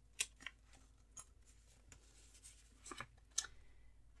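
Paper planner inserts being handled and slid off the metal rings of a pocket ring binder: a few short, faint rustles and light clicks, spaced irregularly.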